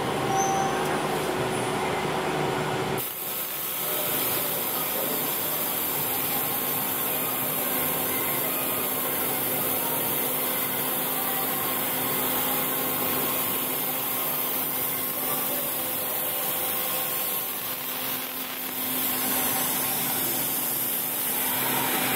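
Steady hiss of a six-axis robot laser cutter cutting a pressed steel motorcycle part. The noise shifts abruptly about three seconds in, then holds even.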